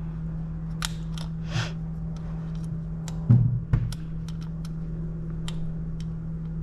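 Small clicks and ticks of a screw and Allen key being worked as the B.A.D. lever's small screw is threaded into the AR-15, with one louder dull knock a little past halfway. A steady low hum underlies it.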